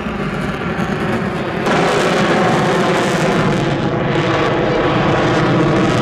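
Jet noise from an F-22 Raptor's two F119 afterburning turbofan engines as it flies overhead at high power. The noise is loud and steady, and it steps up sharply about a second and a half in.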